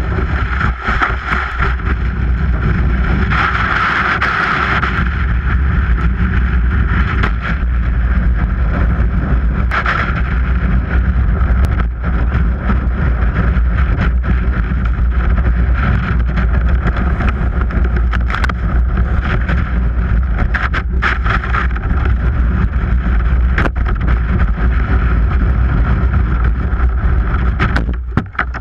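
Whitewater kayak racing down a steep concrete drainage chute: a loud, steady rush of shallow water and hull sliding on concrete, with heavy wind buffeting on the bow-mounted camera's microphone. Near the end it breaks into splashing as the bow plunges into white water.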